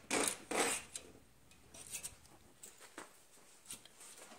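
Metal dipstick scraping twice through the thick new felt seal of its tube, followed by a few faint ticks.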